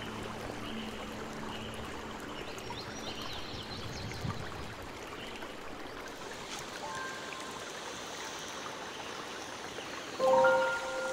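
Steady rushing noise like running water, with a few short faint chirps. About ten seconds in, a loud brief pitched sound with several tones.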